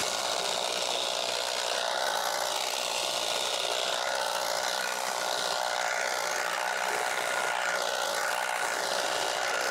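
Battery-powered electric tea-harvesting machine running steadily as it cuts through tea bushes. It makes a mechanical whine with several steady tones, one of which wavers slightly in pitch.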